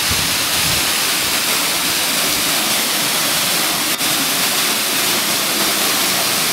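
Steady rush of a waterfall: an even, loud hiss with no pitch to it, with one brief click about four seconds in.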